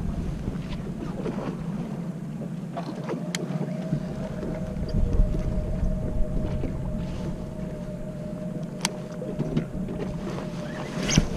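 Steady low rumble of a fishing boat, with wind and water noise. A faint steady hum joins about three seconds in, and there are a couple of light clicks.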